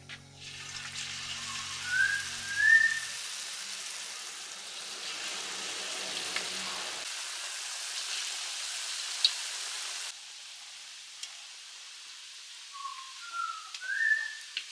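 Food frying in hot oil, a steady sizzle that drops quieter about ten seconds in. Short rising bird-like chirps come about two seconds in and again near the end.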